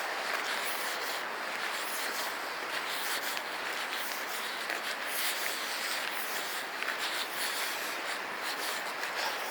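Steady rushing of a creek in flood after heavy rain, an even hiss of fast water with a few light scuffs over it.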